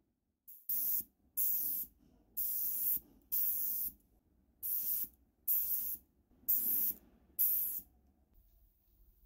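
Spray paint hissing in eight short bursts of about half a second each, laying a coat of paint.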